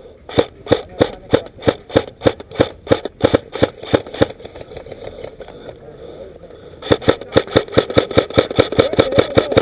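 Airsoft electric rifle fired in quick single shots, about three a second for some four seconds, then after a pause of nearly three seconds a faster string of about five a second.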